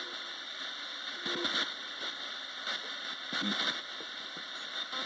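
Radio static hissing steadily, broken three or four times by brief snatches of sound as the radio runs as a ghost box.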